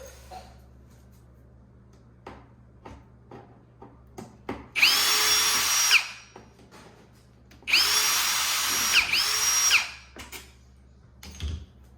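Power drill-driver with a Torx bit backing out screws: two runs, about a second and then about two seconds long, each spinning up and winding down, the second with a brief check partway. Light clicks and taps of handling come between the runs.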